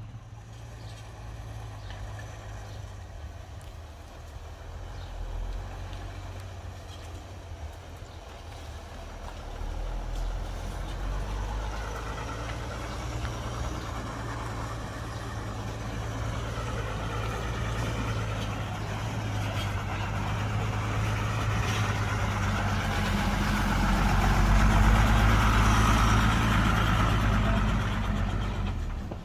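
Heavy diesel engine of a construction machine running steadily, growing louder through the middle and loudest near the end.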